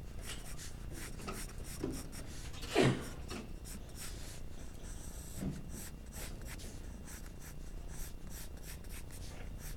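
Graphite pencil scratching on paper in quick, repeated shading strokes as an area of tone is built up, with a brief louder sound about three seconds in.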